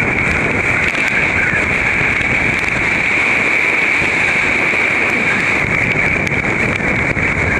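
Hurricane-force wind blowing across the microphone: a loud, steady rush of noise with a hissing edge and no let-up.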